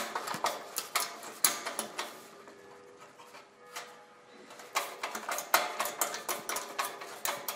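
Irregular small metal clicks and taps from a bolt and nut being handled and turned by hand in a fitting on an aluminium wing tube. The clicks thin out for a couple of seconds in the middle.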